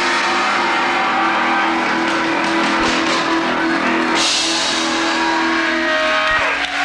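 Riot grrrl band playing live and loud, with guitar, drums and accordion holding long sustained notes.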